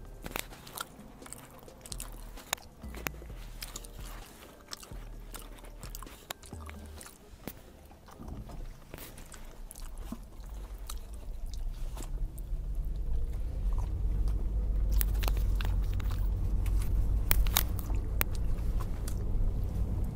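A person chewing and biting food close to the microphone, with small crunches and wet mouth clicks. About twelve seconds in, a low rumble builds up and stays underneath.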